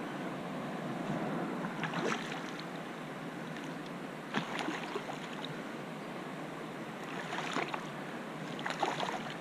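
Shallow river water flowing and lapping right at the camera, with a splashing slosh every two to three seconds.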